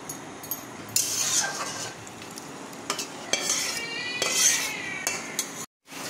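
Metal spoon stirring a simmering vegetable curry in a metal pan, clicking and scraping against the pan over a sizzling hiss, with a short wavering squeal of metal rubbing on metal about three and a half seconds in.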